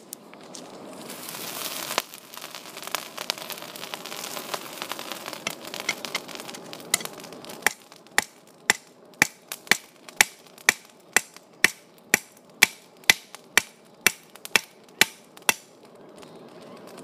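Hand hammer striking red-hot rebar on a makeshift anvil: a steady run of about seventeen sharp blows, roughly two a second, starting about eight seconds in. Before the blows come several seconds of hiss with a few scattered knocks.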